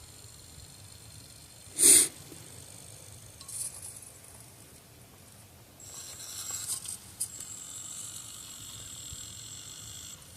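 A single sharp nasal sniff about two seconds in, from a person with a head cold. It is followed later by a steady high hiss with a thin whine in it that runs for the last four seconds or so.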